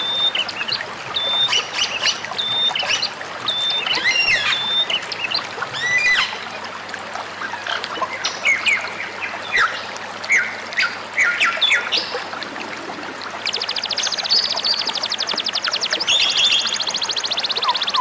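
Several songbirds whistling and chirping in quick, varied phrases over a steady water-like hiss. About three-quarters of the way through a fast, dry trill sets in and continues alongside the calls.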